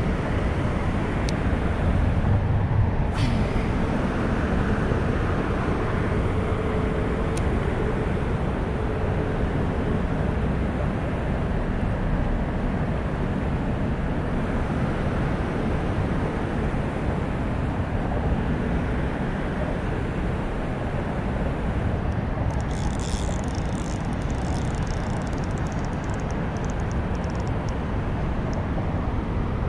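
Steady low rumble of road traffic, with a brief high crackling rustle about three-quarters of the way through.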